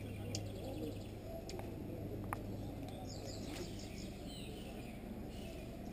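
High-pitched animal chirping: a fast trill near the start and a quick run of descending chirps about three seconds in. Two sharp clicks in between, the second the loudest sound, over a steady low hum.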